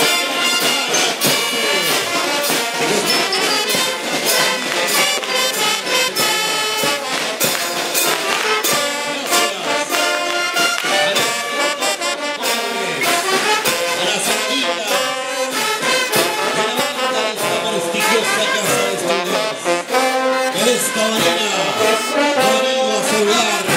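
Brass band music: trumpets and trombones playing a tune over a steady beat of drum strokes.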